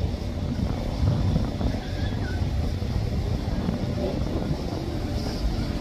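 Steady low rumble of a motorboat under way, with wind buffeting the microphone.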